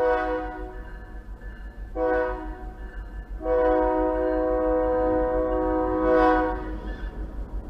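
Diesel locomotive air horn sounding the grade-crossing signal. A long blast ends about a second in, a short blast follows about two seconds in, and then a final long blast lasts about three and a half seconds.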